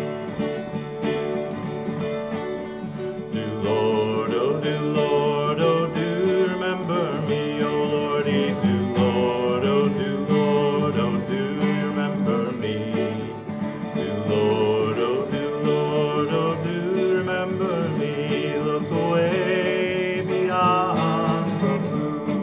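Acoustic guitar strummed as a song medley begins, with a singing voice carrying the melody over it from about three and a half seconds in.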